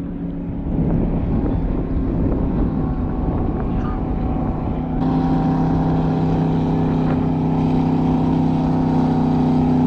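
Speedboat engine running at speed across the water. The drone turns into a steady, slightly louder engine note about halfway through.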